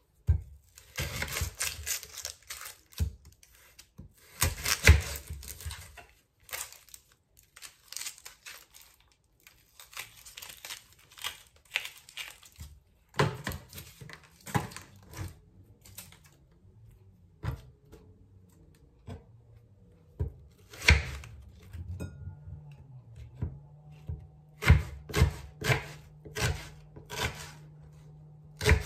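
Papery onion skin crackling and tearing as it is peeled off by hand with a knife, densest in the first few seconds. Then scattered sharp knocks of a kitchen knife on a wooden chopping board, ending in a quick run of strokes as the onion is cut.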